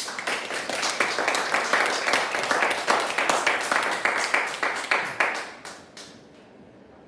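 Audience applauding: many people clapping in a dense patter that dies away near the end.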